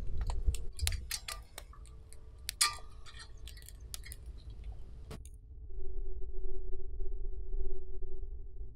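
Campfire crackling with metal clinks from a cooking pot hung on a stick tripod over the fire. The sharp, irregular clicks stop suddenly about five seconds in, leaving a low rumble with a faint steady hum.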